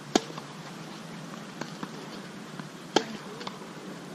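Tennis rally: a racket hits the ball sharply twice, about three seconds apart, with fainter knocks of ball bounces and the far player's return in between.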